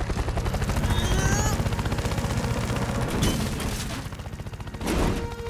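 Cartoon sound effect of a helicopter rotor chopping rapidly during a fast descent, with a sharp whoosh near the end.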